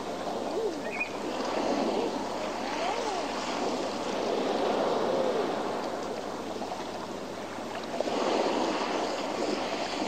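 Sea cliff and rocky shore ambience: surf washing against rocks, swelling again about eight seconds in, with a few scattered animal calls that rise and fall in pitch.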